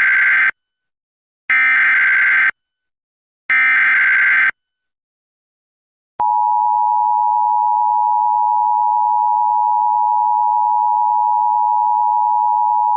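Emergency Alert System activation: the last of three one-second bursts of the digital SAME header, with their harsh warbling data screech, then after about a second and a half of silence a steady, loud attention-signal tone that starts about six seconds in and holds. These signals open a Special Marine Warning.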